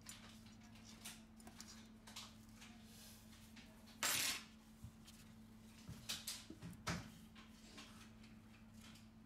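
Faint small clicks and taps of tweezers and parts against the opened Samsung Galaxy S7 Edge's metal frame during reassembly, with one brief louder rustle about four seconds in and a few sharper clicks a couple of seconds later as the battery is being fitted.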